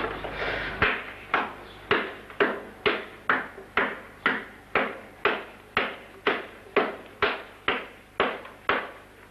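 Hammer driven down onto wooden blocks on a wooden frame: a steady run of about seventeen sharp blows, roughly two a second, each fading quickly.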